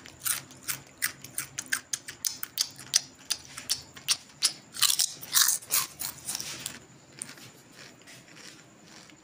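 A person chewing a crisp fried snack close to the microphone: a quick, irregular run of sharp crunches that dies away about seven seconds in.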